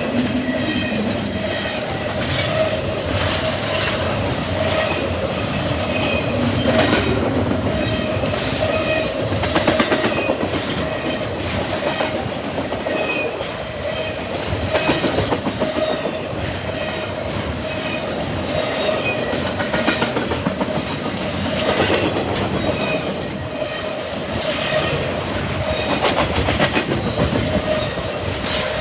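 Double-stack intermodal freight cars of a long CSX train rolling past at speed. There are irregular clacks of wheels over rail joints and a steady wheel squeal underneath.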